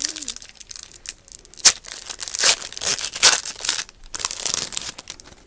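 Trading card pack wrapper crinkling and tearing as it is handled and opened, in irregular rustles with a few sharp ones.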